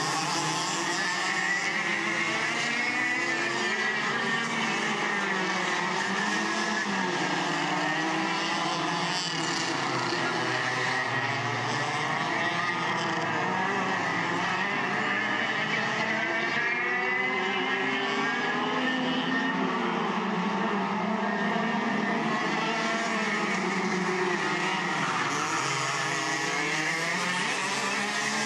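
Several racing go-kart engines running on a circuit, their pitch rising and falling continuously as the karts accelerate and slow through the corners.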